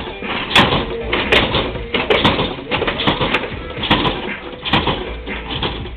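Lowrider car bouncing on its hydraulic suspension: a run of loud, irregular knocks and clacks, about one to two a second.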